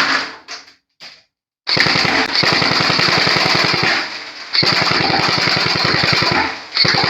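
Classic Army Nemesis double-barrel M4 airsoft electric rifle firing on full auto: a rapid, even rattle of shots in three long bursts, with short breaks about four seconds in and again near the end.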